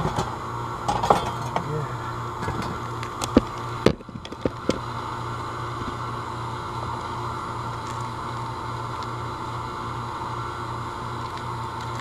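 Sharp clicks and knocks of hands working the cover and pull-out block of an air conditioner's outdoor electrical disconnect box, several in the first five seconds, over a steady hum.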